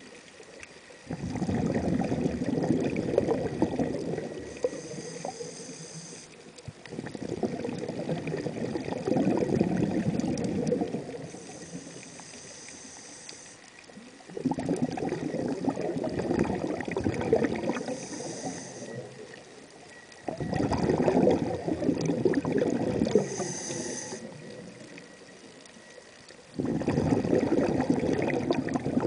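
Scuba diver breathing through a regulator underwater: about five long exhalations, each a few seconds of low bubbling, alternating with short high hissing inhalations.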